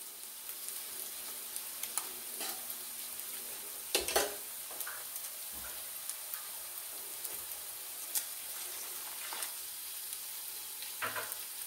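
Onion and tomato masala sizzling in a frying pan, with a spatula scraping and tapping against the pan a few times.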